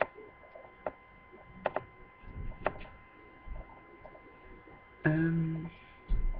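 Sharp, scattered clicks of a computer mouse and keys, a handful over a few seconds, then a short steady low buzzing tone lasting under a second about five seconds in and a dull knock just after.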